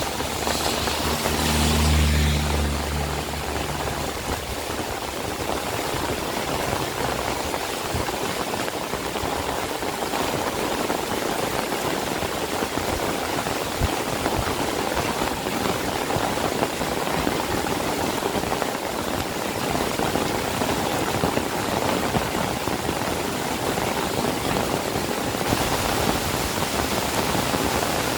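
Steady rain falling. In the first few seconds a vehicle engine hums past, loudest about two seconds in, then fades under the rain.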